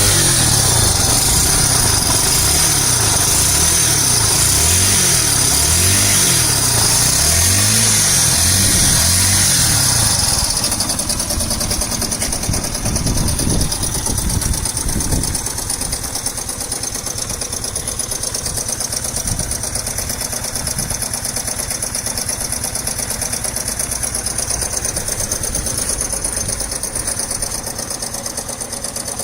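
Yamaha SR125's single-cylinder four-stroke engine revved up and down several times, then settling to a steady idle about ten seconds in. The owner reports a knock from this engine that he suspects is the connecting rod.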